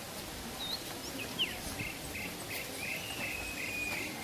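Steady rushing of a waterfall with a songbird calling over it: a swooping note, then a run of short, evenly spaced chirps and a longer drawn-out note near the end.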